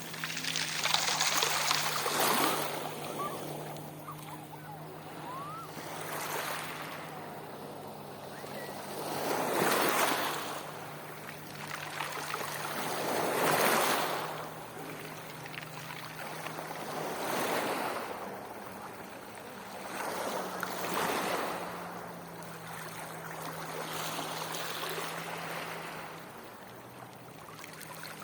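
Black Sea waves breaking and washing on the shore, a surge about every four seconds, with a faint steady low hum underneath.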